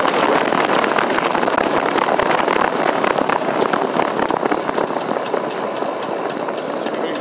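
Wind and tyre noise from a Schwinn Traveler bicycle coasting fast downhill, easing off slightly as it goes. From about five seconds in, a regular ticking from the rolling bike comes through, about three a second.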